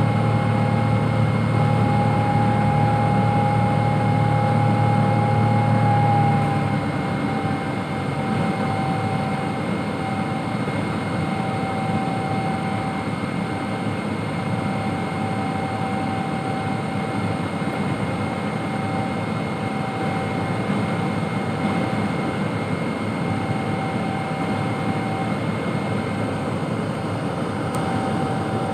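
Boeing 777-200 jet engines running steadily with a high whine over a rumble. About six seconds in, the rumble drops and the whine dips slightly in pitch.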